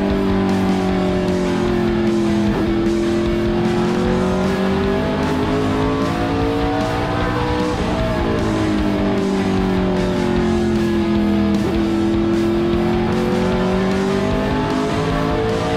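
Onboard sound of a NASCAR ARCA stock car's V8 engine at speed on an oval, its note climbing down the straights and falling as the driver lifts for the turns, twice over.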